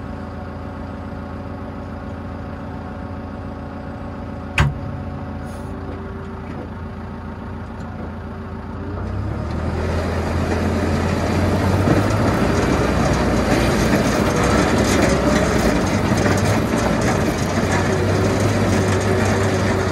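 Tractor engine idling steadily, with one sharp click about four and a half seconds in. About nine seconds in the engine picks up and a louder, rougher noise of the V-plow scraping snow and ice off the road joins it.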